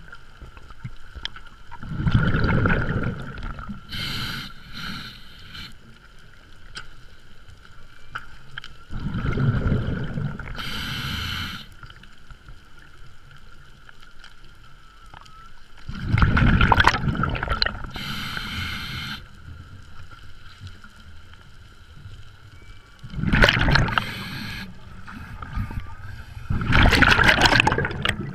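Scuba regulator breathing heard underwater: five bursts of bubbling rumble several seconds apart, some followed by a hiss.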